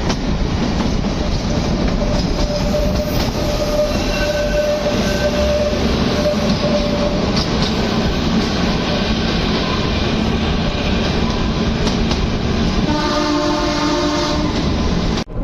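Narrow-gauge Kalka–Shimla toy train running, heard from inside a moving coach: a steady rumble with wheel clatter on the rails. A brief pitched tone sounds near the end.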